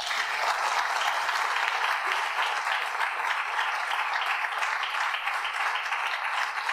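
Audience applauding: a steady, even clapping that starts abruptly and holds without letting up.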